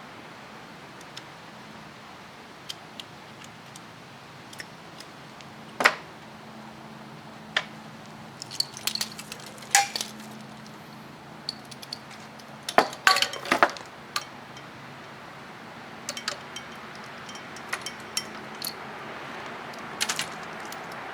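Small hard objects, apparently metal, clinking and tapping irregularly, with a cluster of clinks about halfway through, over a faint steady hum.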